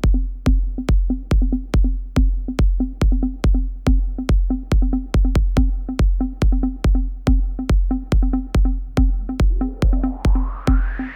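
Electronic dance music from a Maschine+ and Roland MC-707 groovebox setup: a steady four-on-the-floor kick drum at a little over two beats a second with a short pitched note between the kicks, and a sweep rising in pitch over the last two seconds.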